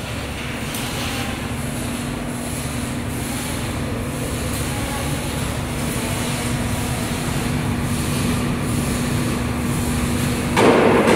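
Steady machinery noise with a constant hum. Near the end, a louder, rougher noise starts up abruptly.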